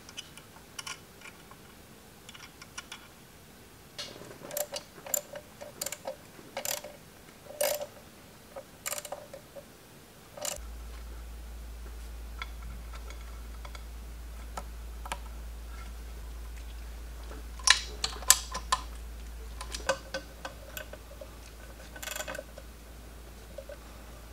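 Small metal parts clicking and clinking as a chain grinder is reassembled by hand: washers and a bearing assembly being fitted onto the arbor shaft in the cast-iron housing, in irregular runs of sharp clicks. A low steady hum comes in about ten seconds in.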